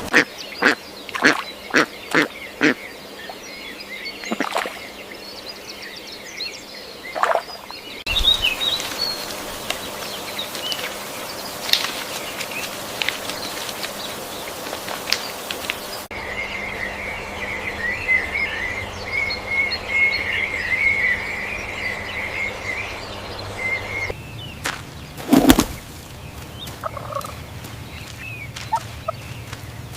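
Poultry calling and peeping in several short clips, with a dense stretch of continuous high chirping in the middle. A run of sharp knocks in the first few seconds, and one loud thump about 25 seconds in.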